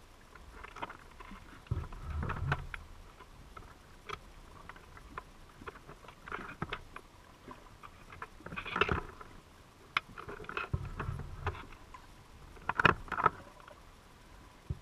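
Underwater clicks, taps and muffled knocks heard through a camera's waterproof housing inside a crab trap, coming irregularly, with louder clusters about two, nine and thirteen seconds in.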